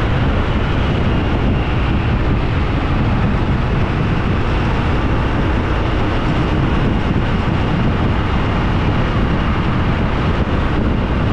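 Steady, loud vehicle noise: an unbroken rumble with no changes in pitch or level.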